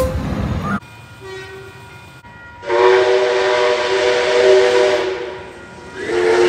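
Steam locomotive's chime whistle blown in two long blasts, a steady chord of several notes, the first about three seconds in and the second about six seconds in. Before it, the noise of a passing diesel locomotive cuts off under a second in.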